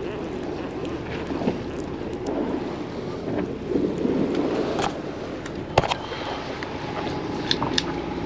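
Steady wind and sea noise aboard a fishing boat at sea, with wind buffeting the microphone. A few sharp clicks or knocks stand out, the loudest about two-thirds of the way through.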